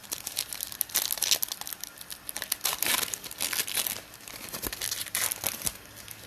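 Wrapper of a Panini Optic basketball card pack being torn open and crinkled by hand, a dense irregular crackling.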